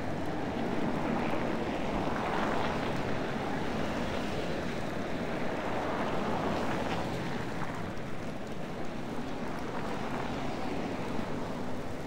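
Cars driving past on a snow-covered road, their tyres hissing through the snow in a steady noise that swells as a car goes by about two seconds in and again around six seconds in.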